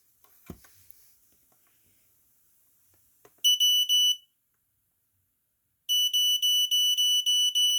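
LifeSaver 0916 smoke alarm horn sounding on test: a high-pitched tone pulsing rapidly, about five pulses a second. It sounds in a short burst a few seconds in, stops for nearly two seconds, then starts again near the end.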